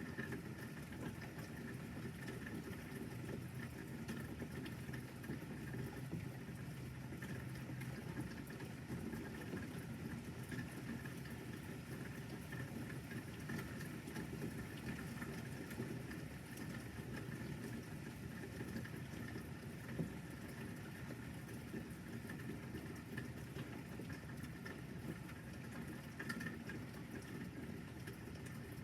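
Light rain patter over a low steady hum, with one sharp click about twenty seconds in.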